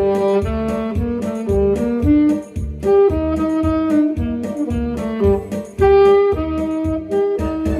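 Two alto-range saxophones playing a duet melody in held notes, over a backing track with a steady drum beat and bass.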